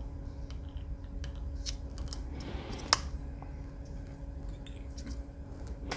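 Scattered small clicks and ticks from hands handling a fly-tying thread bobbin and a jig while thread is wrapped, with one sharper click about three seconds in, over a faint steady low hum.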